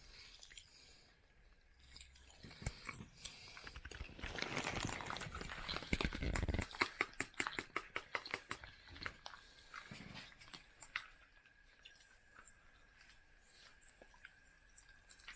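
Super sour popping candy crackling and snapping in a mouth while it is chewed: a rapid scatter of tiny pops that starts about two seconds in, is densest around the middle and thins out towards the end.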